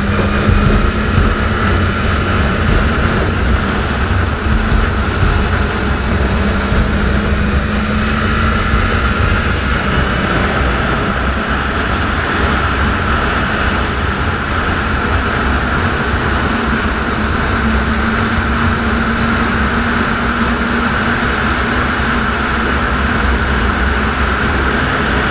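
BMW S1000RR inline-four engine running at speed on a race track under heavy wind rush on the microphone, its pitch drifting up and down a little with the throttle.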